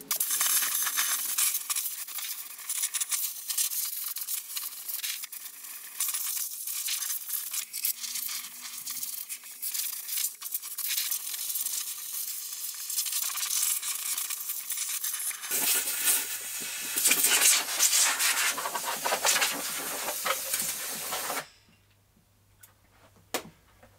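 A jet of air hissing as it blows packed grass cuttings out of a Flymo Rollermo electric mower's motor and fan housing, with crackling and rattling from the debris. It cuts off a couple of seconds before the end.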